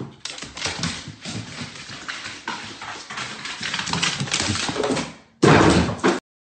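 A dog's paws and claws clattering down hardwood stairs in quick, irregular steps. Near the end comes a short, much louder burst of noise, and then the sound cuts off.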